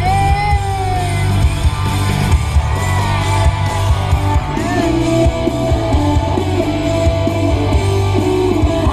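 Rock song with guitar and singing, turned up loud on a car stereo.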